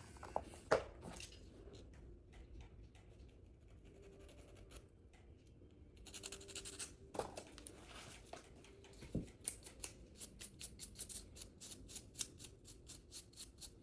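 Faint short scraping strokes on fingernails as glued-on nail tips are shaped. Scattered at first, then a quick run of about three strokes a second in the second half.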